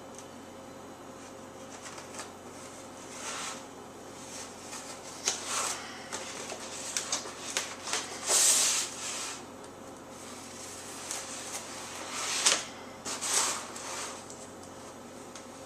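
A shipping package being cut open and unwrapped: cardboard and plastic packaging scraping and rustling in irregular bursts, the longest and loudest hiss about halfway through.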